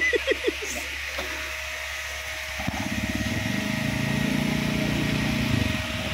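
Honda Vario scooter's single-cylinder four-stroke engine, freshly tuned up with a carbon cleaner sprayed into the intake, running about two and a half seconds in. It rises a little in pitch, then drops back just before the end.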